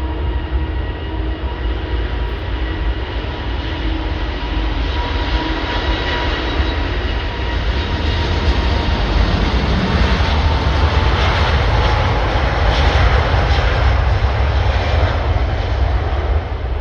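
Jet airliner's engines passing close by: steady jet noise with a low rumble and thin whining tones, building to its loudest about two-thirds of the way through and easing off near the end, the whine dropping slightly in pitch as it goes by.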